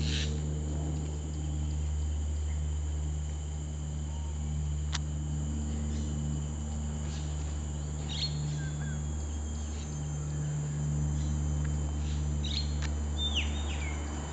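Outdoor ambience: a steady low hum under a constant high insect drone, with a few short bird chirps in the second half, one falling in pitch near the end.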